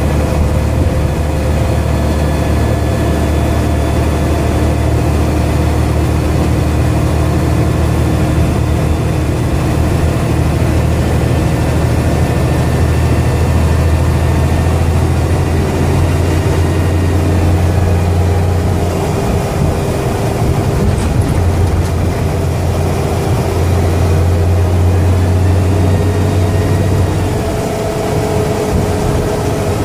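Dennis Trident double-decker bus's diesel engine running under way, with a loud low drone and steady high whining tones over it; the whine is taken for a bad turbocharger. The low engine note drops off about two-thirds of the way through, comes back, and drops again near the end.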